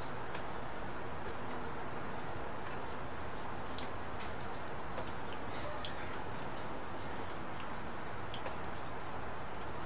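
Steady rain hiss, with scattered high ticks of single drops landing at uneven intervals.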